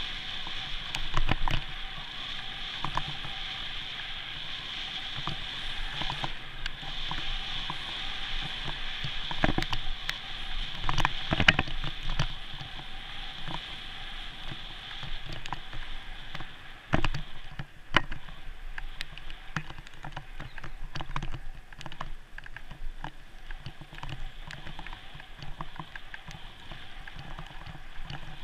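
Bicycle riding noise picked up by a GoPro on the bike: a steady hiss of tyres and moving air with sharp knocks and rattles as the bike goes over bumps, several of the loudest near the middle.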